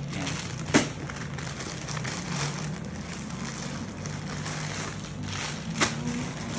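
Crinkly plastic bags of Toblerone Tiny chocolates rustling as they are handled and sorted in a cardboard box, with two sharp knocks, one about a second in and one near the end.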